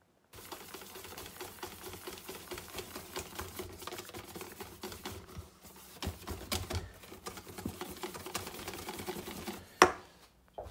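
Wire balloon whisk beating flour batter in a stainless steel bowl: a fast, continuous clicking and scraping of the wires against the metal. Near the end a single sharp clank as the whisk is set down in the bowl.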